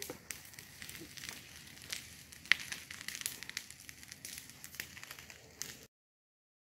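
Irregular crackling and sharp clicks over a faint hiss, the loudest about two and a half seconds in, cutting off abruptly near the end.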